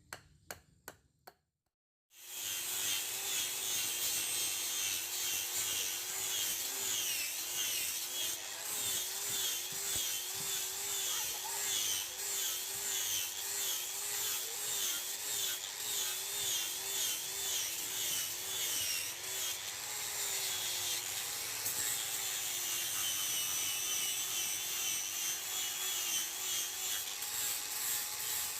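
A power tool grinding the steel of a rotary tiller blade. It starts abruptly about two seconds in and runs steadily, its pitch wavering up and down about once a second.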